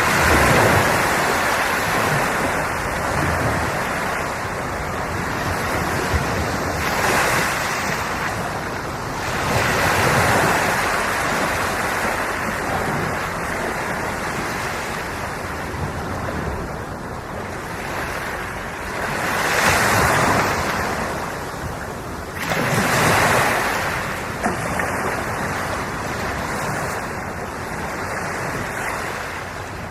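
Sea waves breaking and washing ashore: a continuous rush that swells louder with each incoming wave, about five times.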